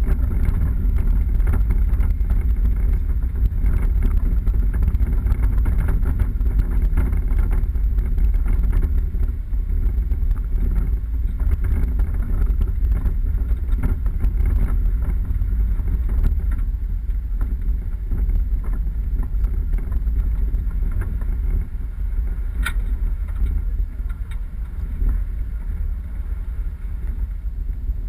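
4x4 vehicle driving off-road: a steady low rumble of engine and tyres on the track, with wind buffeting the microphone. A single sharp tick about three-quarters of the way through.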